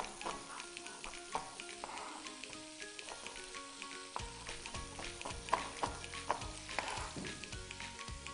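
Knife chopping red onion on a plastic cutting board in a run of irregular taps that turn heavier, with duller thuds, about four seconds in. Under it, kababs sizzle as they shallow-fry in oil in a pan.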